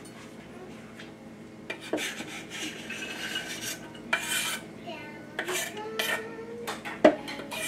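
A chef's knife scraping diced onion off a bamboo cutting board into a Crock-Pot's stoneware crock, starting about two seconds in. The scraping and clattering comes with several sharp knocks against the crock and short ringing tones.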